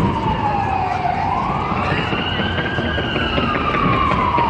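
Emergency vehicle siren in a slow wail. Its pitch falls, turns upward about a second in, and falls again over the last second and a half, over a low steady rumble.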